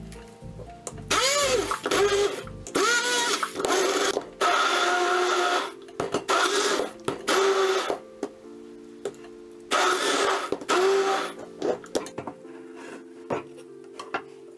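Hand-held immersion blender grinding chunks of tomato and red paprika into a purée in a plastic jug, run in five bursts of a second or two each with a pause near the middle. The motor's pitch sweeps up and down within each burst. Background music plays underneath.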